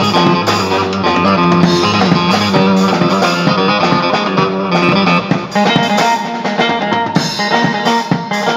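Live Turkish halay folk music without singing: an amplified bağlama plucks the melody while a drum kit keeps a steady dance beat.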